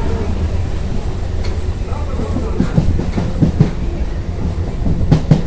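Train running along the track: a steady low rumble with a series of clacks from the wheels passing over rail joints, the sharpest pair near the end.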